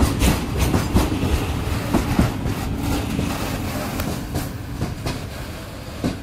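Open-top freight wagons rolling past, their wheels knocking over rail joints in an irregular clickety-clack over a low rumble, slowly fading as the end of the train draws away, with one sharper knock near the end.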